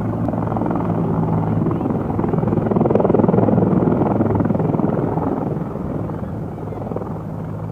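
Helicopter rotor chopping over a steady engine hum, growing louder to a peak in the middle and then easing off.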